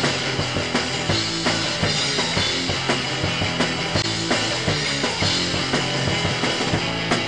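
Background music with a drum kit keeping a steady beat over a bass line.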